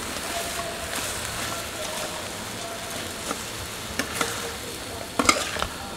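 Crocodile tail meat sizzling as it is stir-fried in a steel wok, a metal spatula scraping and knocking against the pan now and then, with a louder run of clanks about five seconds in.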